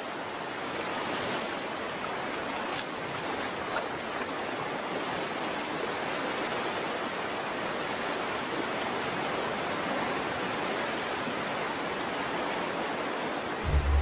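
Stream water rushing over rocks, a steady even wash.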